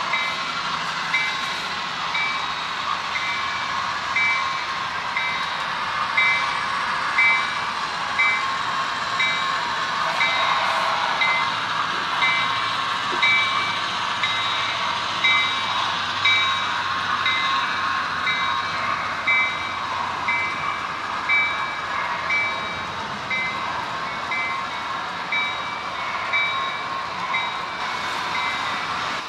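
Model train running on a layout, with a model locomotive's electronic bell ringing steadily at about two strokes a second over the rumble of the train rolling on the track.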